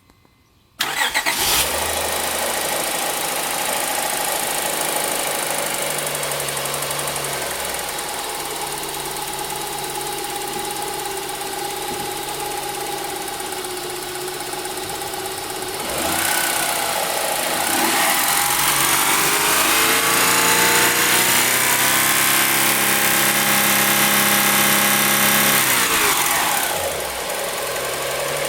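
2003 Honda Pilot's V6 engine starting about a second in and idling, then revved up about halfway through, held at higher revs, and let fall back to idle near the end.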